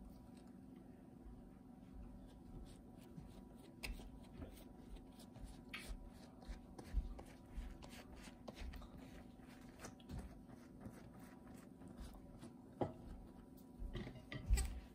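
Faint handling noises, a scattering of small clicks and taps, over a steady low hum.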